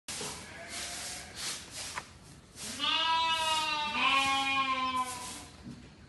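Sheep bleating in a pen: one loud, drawn-out bleat of about two seconds begins roughly three seconds in and shifts pitch partway through, with fainter bleats from the flock before it.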